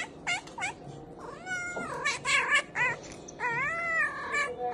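A domestic cat meowing over and over: two short chirping calls at first, then a string of longer, drawn-out meows.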